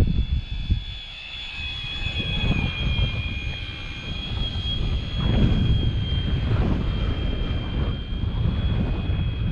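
Electric motor and propeller of a handmade foam RC model plane, a Hellcat replica, whining steadily in flight, the pitch wavering slightly. Wind buffets the microphone with irregular low rumbles.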